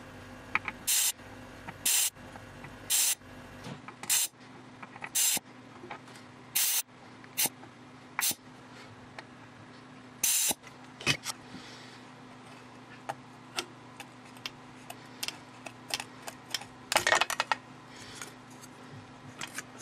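A run of short hissing bursts, about one a second, from a vacuum desoldering tool sucking solder off the circuit board's mounting tabs. Later come scattered clicks and a brief scrape near the end.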